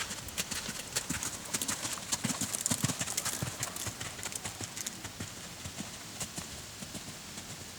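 Hoofbeats of a ridden horse, a quick run of strikes that grows fainter after about five seconds.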